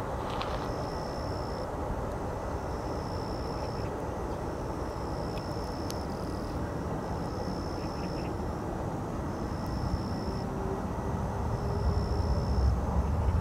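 Distant jet noise of an Airbus A330-300 airliner on final approach, a steady rumble that grows louder and deeper over the last few seconds as the aircraft nears. A high, even chirp repeats about every second and a half throughout.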